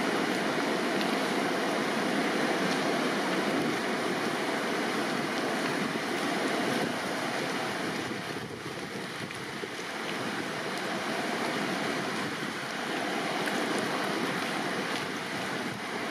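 Fast, high river water rushing through the arches of a stone bridge as whitewater: a steady, even rush of water.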